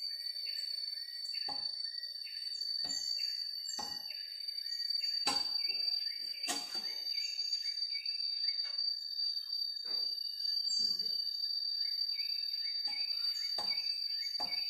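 Background music: a steady high tone with short repeated notes and occasional sharp hits, starting abruptly.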